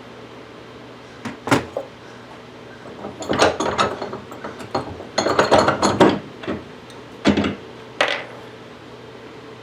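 Small metal parts being handled: the steel rivet nut tool and its small hardware clinking, clicking and clattering in several irregular bursts, busiest in the middle.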